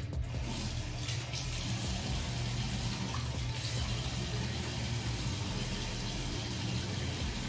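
Bathroom sink tap turned on and running steadily into the basin while rinsing after brushing teeth.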